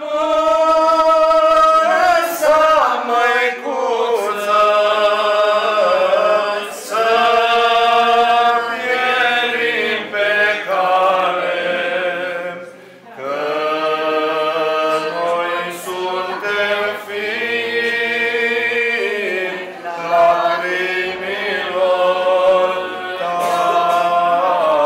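Orthodox church chant sung by a male chanter, in long held notes, with a brief break about twelve seconds in.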